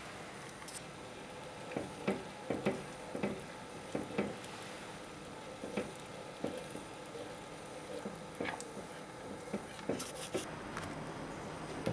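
Honey-sugar syrup simmering in a saucepan with a steady bubbling hiss, while a spatula is stirred through it, knocking and scraping against the pan a dozen or so times from about two seconds in.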